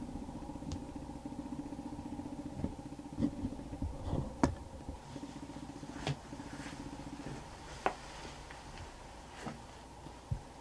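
A steady low mechanical hum, like a distant engine running, that drops away about seven seconds in. Over it come scattered knocks and rustles of a person shifting on a wooden porch deck and settling prone behind a rifle, the sharpest about four and a half seconds in.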